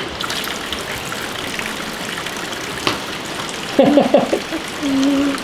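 Mineral spring water pouring from a metal spout into a shallow tiled basin, a steady splashing rush as a hand catches the stream. A girl laughs briefly about four seconds in.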